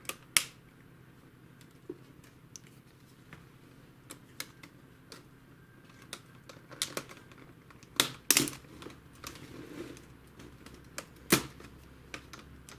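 Scattered clicks and snaps as a plastic card pries a laptop keyboard out of its frame, its plastic latches popping free one by one. The loudest snaps come just after the start, in a quick cluster about 8 seconds in, and once more about 11 seconds in.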